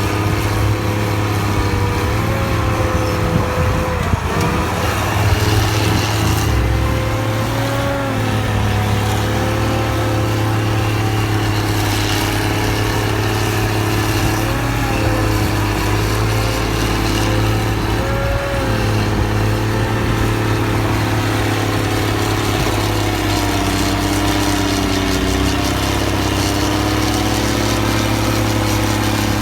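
Fiatallis FD9 crawler bulldozer's diesel engine running steadily; its note dips briefly and recovers several times.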